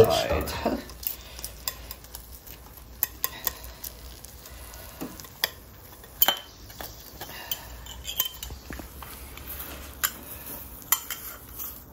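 Metal table knife scraping and clicking against the inside of a ceramic ramekin in short, irregular strokes, cutting around an air-fried egg to free it where it has stuck to the side.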